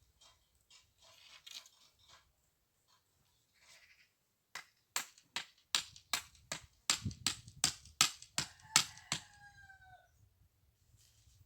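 A garden hoe chopping into the soil of a vegetable bed, about fourteen sharp strikes at roughly three a second, starting about halfway through. Near the end, as the strikes stop, a chicken gives a short call.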